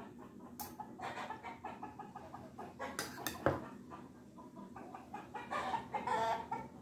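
Chickens clucking in short runs of calls, loudest near the end, with one sharp click about halfway through.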